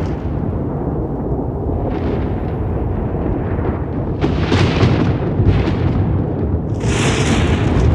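Thunder rolling and rumbling continuously, with several sharper crackling peals breaking over it, the brightest near the end.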